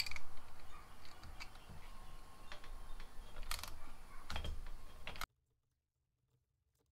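Chain breaker being turned on a motorcycle drive chain, giving irregular sharp clicks as the end of the chain pin is pushed out, with a couple of louder clusters of clicks. The sound stops abruptly about five seconds in.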